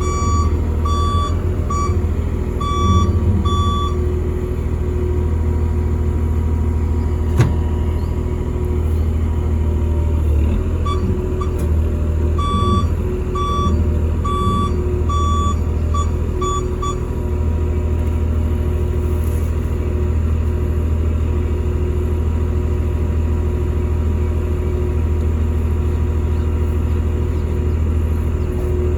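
Heavy-equipment diesel engine running steadily, with a warning alarm beeping in two runs, one near the start and another from about eleven to seventeen seconds in. A single sharp click comes about seven seconds in.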